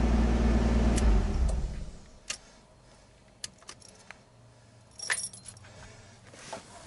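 A car engine running steadily, switched off about a second in and dying away, followed by scattered clicks and a brief jingle of keys as the ignition key is turned off and handled.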